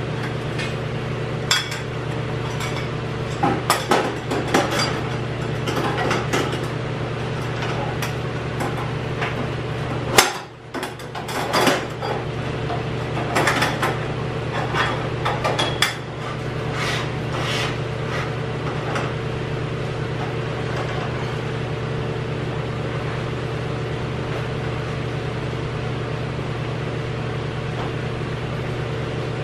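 Metal clanking and knocking as parts are worked loose on a steel go-kart frame, a run of short knocks with one sharp bang about ten seconds in, stopping a few seconds later. A steady mechanical hum runs underneath throughout.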